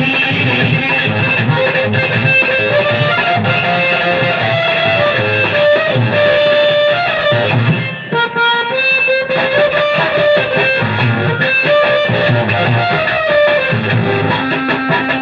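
Instrumental music: a plucked-string melody over a steady beat, with the beat dropping out briefly about halfway through.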